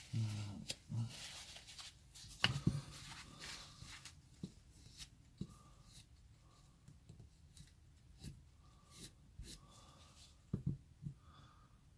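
Scattered light clicks and taps of small parts being handled on a workbench as magnets are set into epoxy-filled holes in plywood vise jaws, with a louder knock about two and a half seconds in and another pair near the end.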